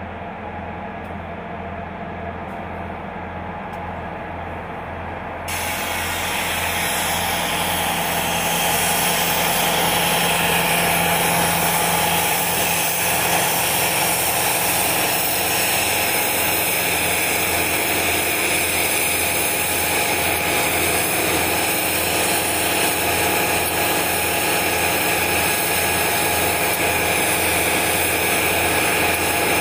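Norfolk Southern diesel locomotives rumbling slowly past at close range, their engines making a steady pulsing drone. About five seconds in a loud, steady rushing noise comes up over it and holds.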